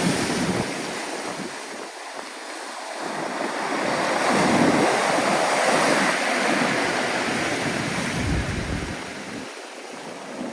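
Storm waves crashing and washing on the shore, the surf swelling to its loudest about halfway through and then easing, with wind buffeting the microphone.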